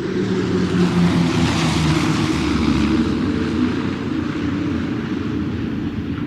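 Airplane engines droning in flight, a steady low hum with a rushing noise above it that grows louder about two seconds in and then eases off a little.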